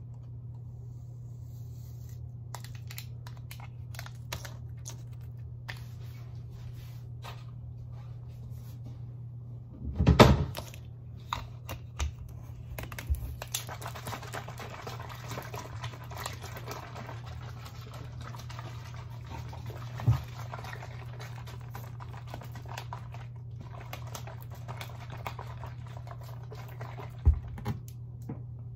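Water sloshing in a plastic bottle as it is shaken to mix in a packet of powdered drink mix, with handling clicks and knocks; the loudest is a single knock about ten seconds in.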